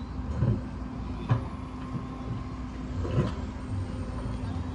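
A motor vehicle's engine running steadily, with a low rumble and a steady hum. Three short knocks or clicks come through it, about half a second, a second and a quarter, and three seconds in.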